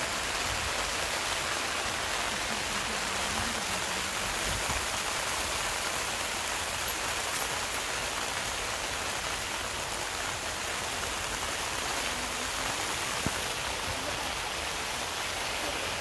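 Heavy rain falling steadily, an even hiss of drops with no break.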